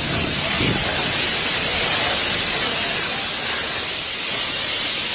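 Natural gas escaping from a ruptured line after an explosion, a loud, steady hiss.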